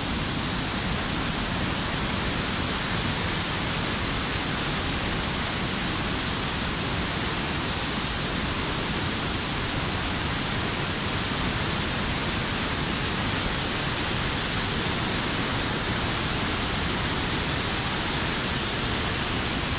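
Tall waterfall falling into a rocky gorge: a steady, unbroken rush of water noise.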